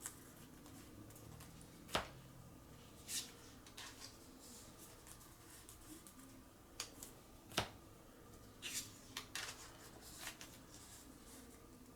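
Trading cards being slid into plastic card sleeves: faint rustling with scattered sharp clicks and snaps, the loudest about two seconds in and again past seven seconds.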